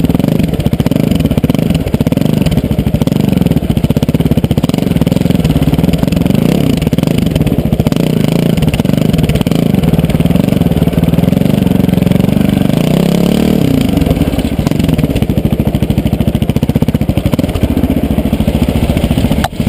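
KTM LC4 620's single-cylinder four-stroke engine running hard as the bike is ridden off-road, its pitch rising and falling with the throttle, with a marked rise and drop about thirteen seconds in.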